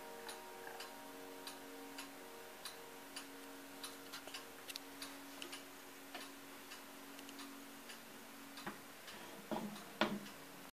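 ODO 36 pendulum chiming clock ticking about twice a second, while the last notes of its carillon chime rods ring on and slowly die away. Near the end, a few knocks as the carved wooden case door is swung shut, the loudest just before the end.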